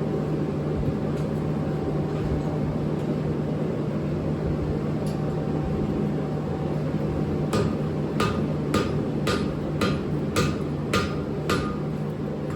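A forge running with a steady roar, then, from about halfway in, about nine hand-hammer blows on hot steel over the anvil, roughly two a second, each with a short metallic ring.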